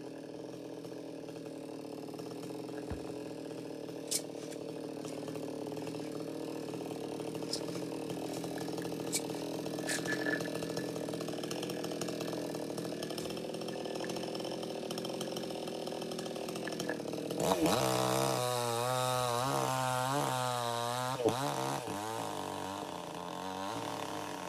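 A chainsaw runs steadily while cutting a coconut palm. About three-quarters of the way in it gets louder, and its pitch wavers up and down for several seconds.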